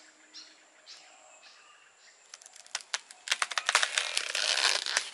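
Corn plant leaves and husk rustling and crackling as a gloved hand handles an ear of sweet corn on the stalk: fairly quiet at first, then a dense run of crackles and rustling from about two seconds in, loudest near the end.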